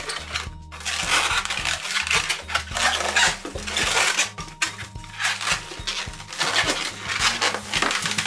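Latex twisting balloons (burgundy 260s) squeaking and rubbing in irregular bursts as they are twisted into bubbles and locked into double-bubble twists.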